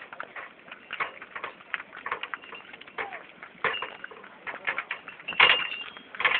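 Bullock cart on the move: irregular clopping of hooves and knocking and rattling of the cart, with a loud clatter about five seconds in and a few short high ringing tones.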